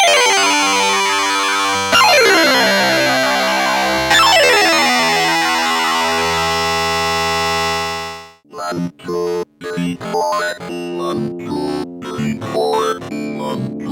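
Waldorf Microwave wavetable synthesizer playing user-made wavetables. Three chords are struck about two seconds apart and held, their tone sweeping as they sustain. After a brief break near the middle comes a run of short, choppy notes.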